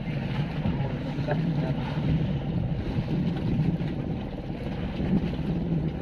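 Outrigger fishing boat's engine running with a steady low hum, under wind and water noise.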